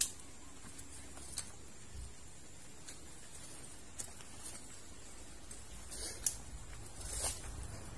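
Walking on a wet, muddy dirt path: scattered sharp taps of footsteps and crutch tips at uneven intervals, over a faint steady hiss.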